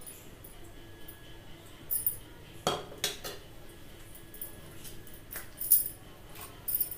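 Metal kitchen utensils clinking: a spoon knocking against steel dishes a few times about three seconds in and twice more near the end, the last clink the loudest, over faint high ticking.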